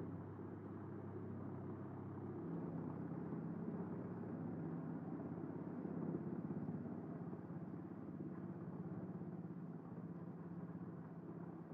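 Truck-mounted Eschlböck Biber 84 drum wood chipper running steadily under load while chipping scrap boards fed in by its loader crane. The engine drone steps up in pitch about two and a half seconds in.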